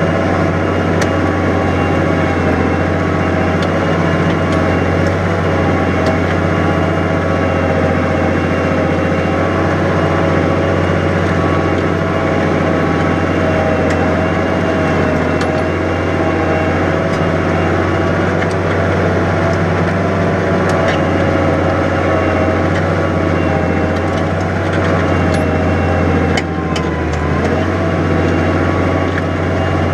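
New Holland 100-90 tractor's six-cylinder diesel engine running steadily under load while pulling a plough through heavy wet soil, with a brief change in its note near the end.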